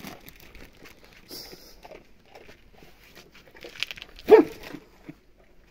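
A domestic animal gives a single short, loud cry about four seconds in, during a tussle among animals being fed.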